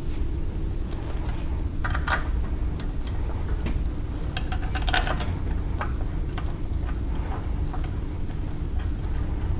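Scattered metal clicks and clinks of a belt grinder and its mounting hardware being handled and lined up for bolting onto a surface grinder mount, over a steady low hum; the clearest knocks come about two and five seconds in.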